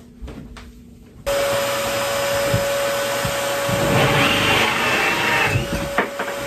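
Cordless drill driving a 1 3/4-inch hole saw up through a wooden desktop from underneath. A steady motor whine with cutting noise starts suddenly about a second in, and the cutting grows louder in the middle as the saw nears breakthrough.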